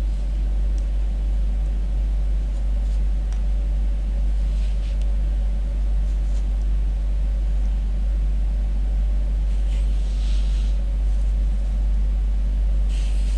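A steady low rumble with a hum underneath, unchanging throughout, with faint brief rustles about four and ten seconds in as hands handle the copper wire coils.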